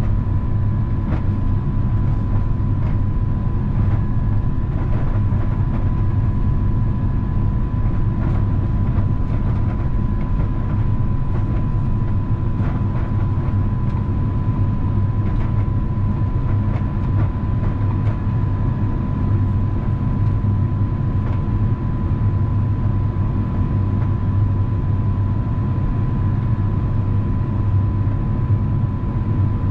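Airbus A350-900 cabin noise on descent, heard at a window seat: a steady low rumble of the Rolls-Royce Trent XWB engines and airflow, with a thin steady whine and scattered faint ticks.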